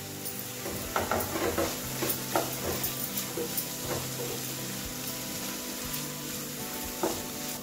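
Chopped vegetables sizzling in a frying pan while a wooden spatula stirs them, with a run of scraping knocks against the pan from about a second in to about four seconds in.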